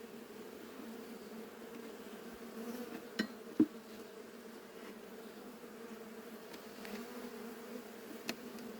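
Honeybees buzzing in a steady hum, with a few short clicks, the sharpest about three and a half seconds in.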